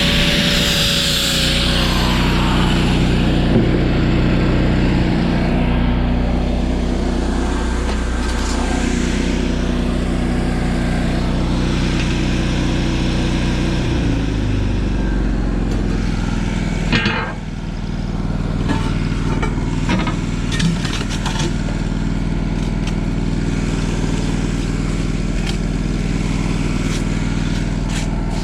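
Engine of an engine-driven welding machine running steadily, its note shifting lower about fourteen seconds in. A few sharp knocks come a few seconds later.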